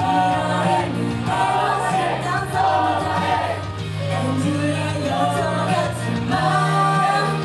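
A woman singing a pop song live into a handheld microphone over pop backing music with a steady bass line.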